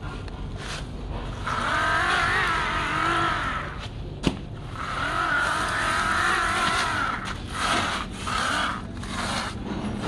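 Wavering, engine-like hum that accompanies a small plastic toy dump truck being pushed through sand, in two long stretches of about two seconds each and then a few short bits. One sharp click a little past four seconds in.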